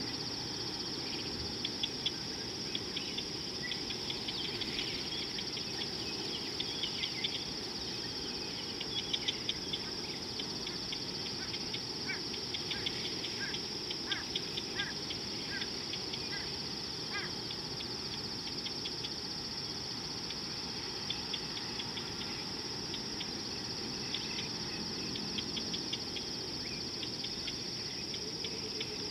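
Steady, high-pitched insect chorus over a low background hum, with scattered ticking calls and a run of short chirps in the middle.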